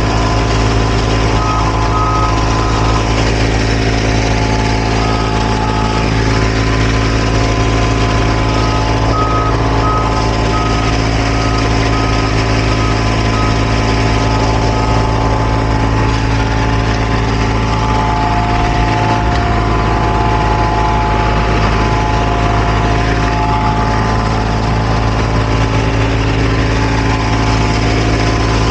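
Heavy diesel engine of asphalt paving machinery running steadily, with a reversing alarm beeping about twice a second in stretches during the first half.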